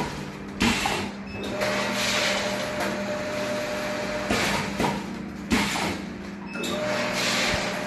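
Automatic granule packing machine running: a steady motor hum under a working cycle that repeats about every five seconds, a pair of sharp knocks followed by a stretch of hiss.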